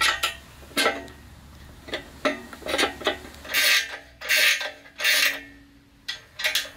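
A steel rod being slid by hand through the pivot holes of a steel scooter frame: metal-on-metal clicks and knocks, then three longer rasping scrapes as the rod is pushed through, and two more clicks near the end.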